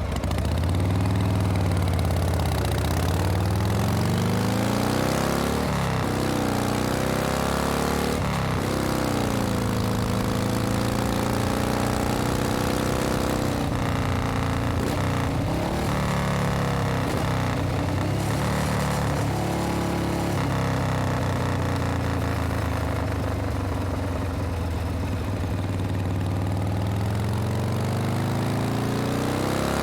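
Harley-Davidson Panhead V-twin motorcycle engine running while being ridden, its note rising and falling repeatedly as the throttle opens and closes and the gears change.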